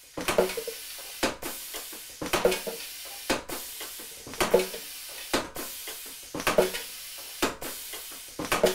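Air-powered Star bullet sizer running automatically: a double-acting pneumatic cylinder cycles the press handle about every two seconds. Each cycle brings a metallic clatter of linkage and press stroke, then a sharp click about a second later, over a steady hiss of air.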